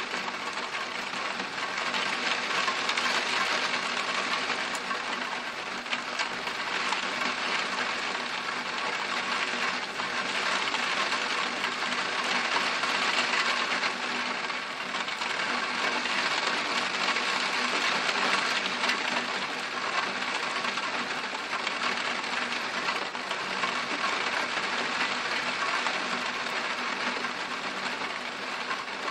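Torrential rain pouring down: a dense, steady hiss that swells and eases every few seconds.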